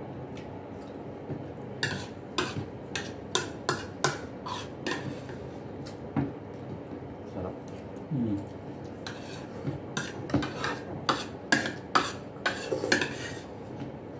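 Metal spoons clinking and scraping against a bowl and plate while eating, a string of short sharp clicks in two bursts, one about two seconds in and another in the second half.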